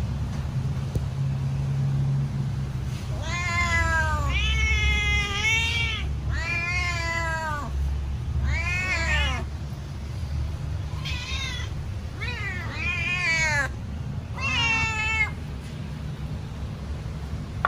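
Domestic cat meowing repeatedly, about eight rising-then-falling meows in quick runs, while begging for food. A steady low hum runs underneath.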